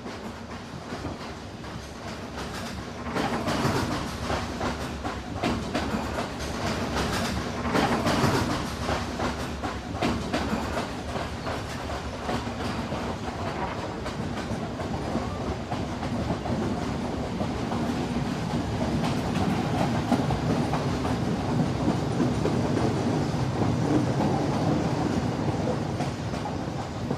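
Passenger train running, heard from inside the carriage: a steady rumble with the wheels clattering over the rail joints, swelling louder around four and eight seconds in.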